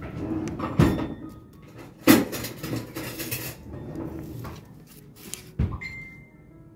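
Kitchen handling sounds: three sharp knocks, about a second in, two seconds in and near the end, like containers set down or a cupboard door closing, with rustling and scraping between them.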